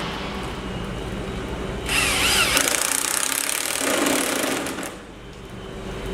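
Power drill driving a large silicon bronze wood screw through a hull plank into the frame. The motor whine wavers up and down for about three seconds, starting about two seconds in, then stops.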